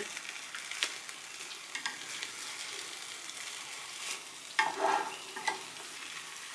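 Egg sizzling low and steady in a rectangular egg-roll pan while the rolled omelette is turned back across the pan with chopsticks. A few light knocks of the chopsticks and roll against the pan, the most noticeable cluster a little past halfway.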